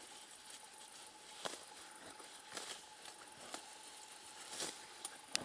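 Faint, slow footsteps through grass: soft rustles and clicks about once a second, with a sharper click near the end.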